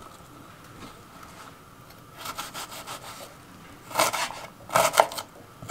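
Kitchen knife slicing through a red onion onto a wooden cutting board: a few soft cuts about two seconds in, then several louder cuts near the end.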